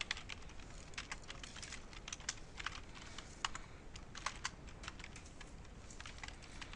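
Typing on a computer keyboard: quick, irregular keystrokes with short pauses, entering connection details into a form.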